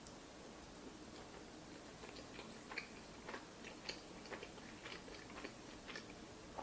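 Faint chewing: a person eating a spoonful of food, with small irregular wet mouth clicks.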